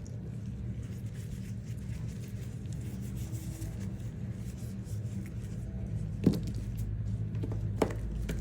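Steady low hum, with two sharp clicks near the end.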